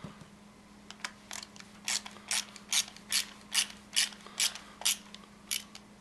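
Ratcheting screwdriver clicking as it drives a T20 Torx screw into a car door latch assembly: about a dozen sharp ratchet clicks, roughly two or three a second.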